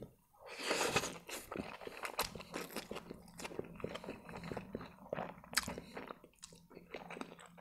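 Close-miked eating of spaghetti: a slurp as the strands are sucked in, then wet chewing with many small clicks and smacks of the mouth.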